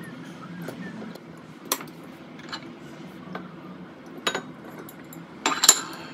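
Metal strainer, spoon and glass bowls clinking as kitchenware is handled: a few separate sharp taps, then a louder quick cluster of clinks near the end, over a faint low hum.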